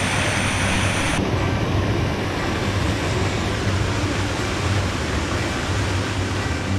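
Steady rushing of Copeland Falls, whitewater pouring over a granite ledge into a pool, a close, full roar with a deep rumble underneath. About a second in the sound turns slightly duller.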